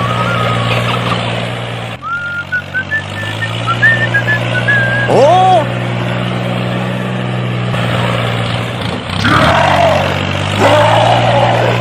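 Tractor engine running steadily. About two seconds in it drops and then revs back up in a rising glide. Short high chirps and a brief rising-and-falling call sound over it between about two and five seconds in, and two rough, noisy bursts come near the end.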